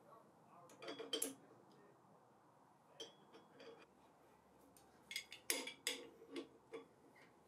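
Faint, scattered metal clinks and clicks of steel parts going onto the threaded blade-tension screw of a cast iron bandsaw: washers and a spring dropped on, then a spanner on the locking nut, with a quick run of clicks near the end.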